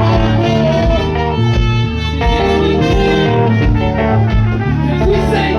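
Band music with a moving bass line and a regular beat, instrumental with no vocals.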